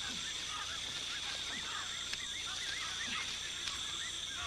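Rainforest animal chorus: many short, wavering chirping calls overlapping one another, with a few lower falling calls and a steady high insect drone beneath.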